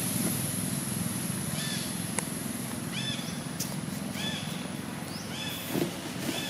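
Newborn macaque giving several short, high-pitched squeals a second or so apart while its mother pins and handles it, over a steady low engine hum in the background.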